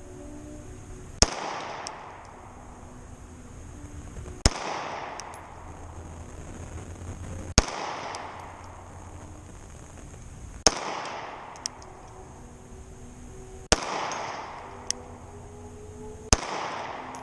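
Springfield Armory XD-S 3.3 9mm pistol fired six times in slow, deliberate aimed fire, roughly three seconds between shots. Each shot is followed by a ringing echo.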